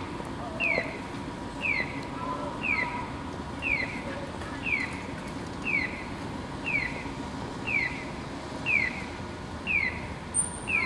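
A short chirp, falling in pitch, repeats very evenly about once a second over a faint steady tone and low street hum. The identical, clockwork spacing marks it as an electronic signal tone rather than a live bird.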